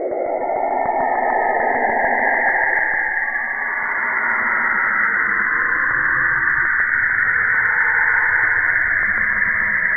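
Saturn's radio emissions recorded by NASA's Cassini spacecraft and shifted into audible pitch: a loud, eerie hissing whoosh made of many pitch-gliding tones. A lower band fades about three seconds in, leaving a high band, and a low rumble joins after the middle.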